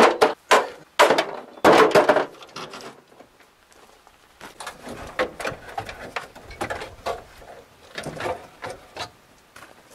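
Loose metal parts of a van's front end clanking and rattling as they are unbolted and pulled off. A few loud clanks fall in the first three seconds, then quieter scattered clicks and knocks.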